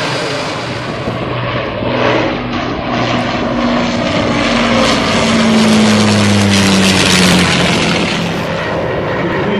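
Avro Lancaster's four Rolls-Royce Merlin piston engines droning as it flies low past, the engine note sliding down in pitch as it goes by and loudest just after the middle.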